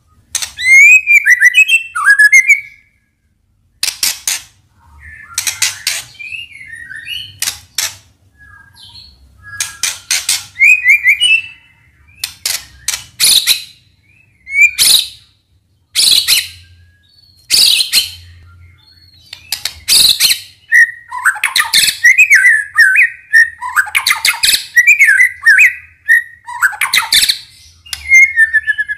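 White-rumped shama (murai batu) singing loud, varied phrases: sharp clicking notes mixed with quick warbled whistles, with short gaps between phrases. About two-thirds of the way in, the song runs into a longer stretch of unbroken warbling.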